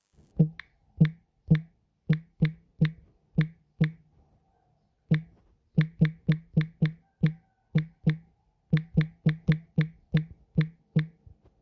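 Phone on-screen keyboard (K keyboard) playing its keypress click sound, one short click for each tap while a message is typed. There are about 25 clicks at an uneven typing pace, with a pause a little past the middle.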